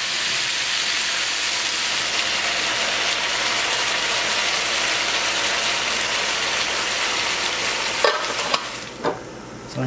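Chicken pieces sizzling steadily in a frying pan in a little chicken broth. The sizzle stops about eight seconds in, followed by a couple of short knocks.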